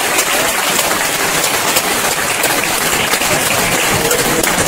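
Audience applauding: many hands clapping in a dense, steady stream.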